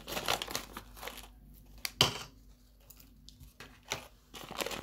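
Plastic candy bag crinkling as it is handled and cut open with scissors, in irregular rustling clusters, with one sharp click about two seconds in.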